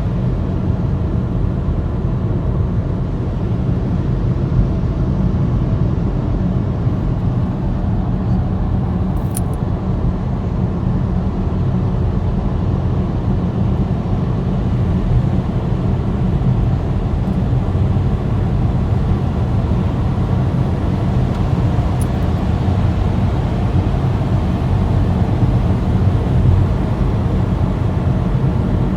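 Moving car heard from inside the cabin: a steady low rumble of engine and tyres on the road.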